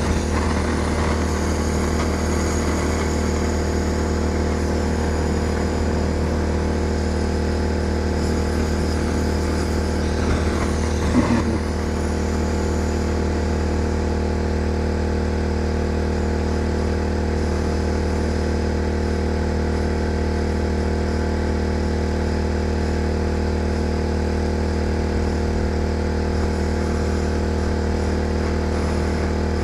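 Portable generator engine running at a steady drone, with a brief clatter about eleven seconds in.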